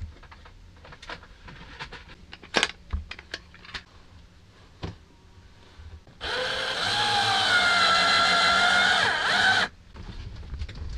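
A few light clicks and knocks of handling, then a power drill-driver spins up and runs steadily for about three and a half seconds, driving a screw, before stopping abruptly.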